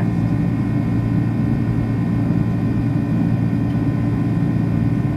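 Boeing 767-300ER's GE CF6 turbofan engines and airflow heard from inside the cabin while climbing out after takeoff: a steady deep drone with a few faint steady whines above it.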